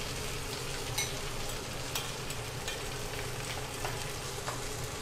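Thin slices of marinated chicken breast sizzling steadily in oil in a non-stick frying pan, with a few light clicks as metal tongs turn them against the pan.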